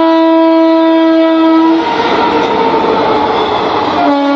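Indian Railways electric locomotive horn sounding a long blast as the train passes, then the coaches rolling by with a clickety-clack. A second, slightly lower-pitched horn blast begins about four seconds in.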